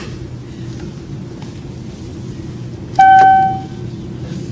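Airliner flight-attendant call chime: a single bright ding about three seconds in, fading out in under a second, over a steady low cabin hum.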